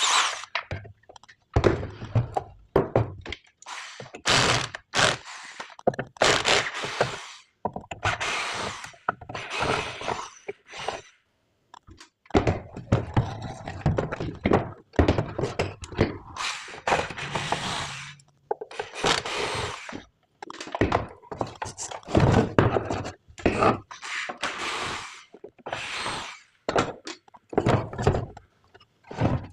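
Irregular knocks, thunks and scraping of hands working with tools and parts at a repair bench, in a small room.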